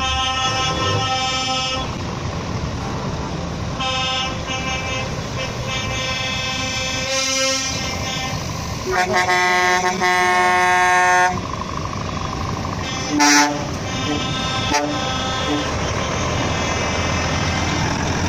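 Truck air horns sounding several times over the low running of truck engines, the longest blast about nine to eleven seconds in and a short loud one near thirteen seconds.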